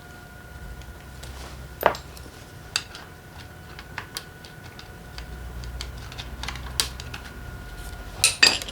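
Metal tools and engine parts clinking and clattering on a workbench while a motorcycle engine is taken apart: scattered sharp clicks, one loud clank about two seconds in and a burst of clatter near the end.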